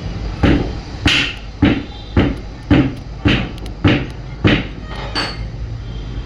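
A run of about nine sharp, evenly spaced knocks, roughly two a second, over a steady background hum.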